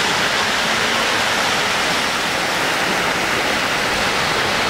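Steady hall din: many voices and model trains running on the layout blend into one even noise, with no single sound standing out.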